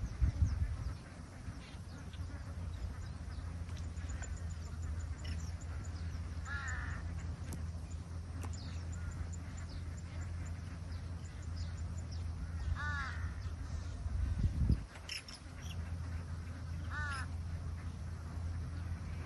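A bird gives three separate harsh, caw-like calls several seconds apart, with fainter chirps between them, over a steady low rumble. There is a brief low thump near the end.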